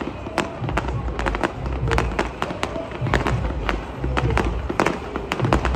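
Fireworks display going off in quick succession: a rapid string of sharp bangs and crackles, about three a second, over a low rumble.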